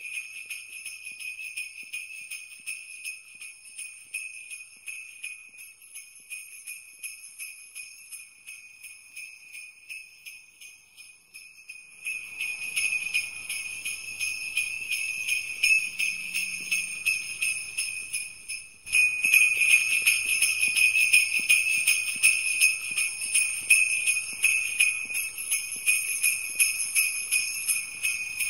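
Sleigh bells jingling without a break in a quick, even shake. They get louder in two sudden steps, about twelve and nineteen seconds in.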